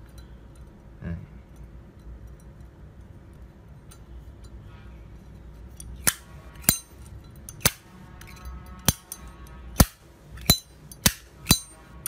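Solid-brass Zippo lighter's hinged lid snapped open and shut: about eight sharp metallic clicks, unevenly spaced roughly a second apart, starting about six seconds in.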